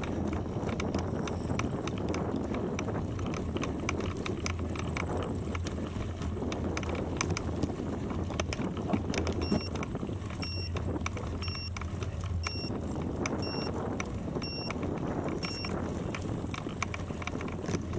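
Bicycle tyres rolling and crunching over a gravel road, with steady rushing noise and many small clicks from the stones. Midway, seven short electronic beeps sound about a second apart.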